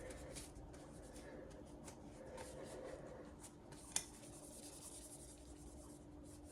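Faint rubbing and light handling noises over a steady low hum, with one sharp click about four seconds in.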